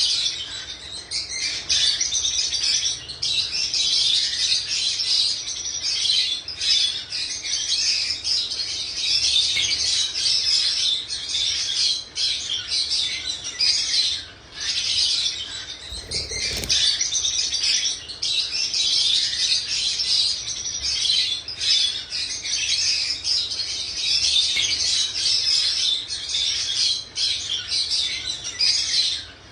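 Pet birds chirping in a dense, almost unbroken chatter of high tweets, with a brief low thump about halfway through.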